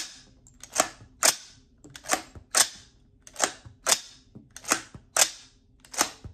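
AR-15-style .350 Legend rifle being hand-cycled: the charging handle is pulled back and let go over and over, the bolt carrier giving a pair of sharp metallic clacks about half a second apart, a pair roughly every 1.3 seconds. Each cycle ejects one cartridge and strips the next from the magazine into the chamber in a feed test.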